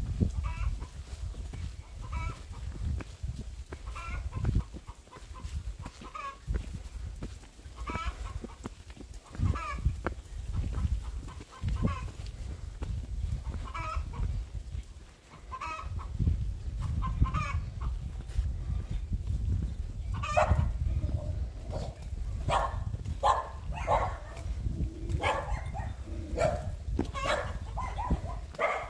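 Hens clucking and cackling in short repeated calls, growing busier and louder in the last third: the cackle hens make after laying an egg. A steady low rumble lies beneath.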